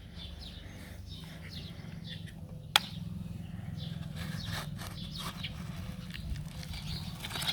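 Diesel engine of a backhoe loader running low and steady, with birds chirping over it. A single sharp click comes nearly three seconds in.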